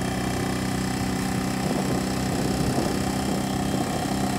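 Motorcycle engine running steadily as the bike rolls along at low speed.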